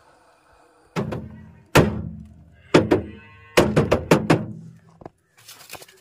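A series of loud, irregular thumps: single knocks about one, two and three seconds in, then a quick cluster of four or five just before the four-second mark.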